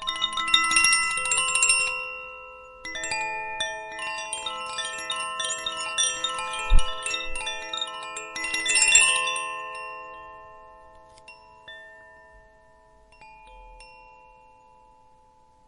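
Koshi chime, its tuned metal rods struck by the clapper in quick clusters of tinkling notes. A short burst comes first, then a longer one lasting several seconds with a single knock in the middle. After that the notes ring on and slowly fade.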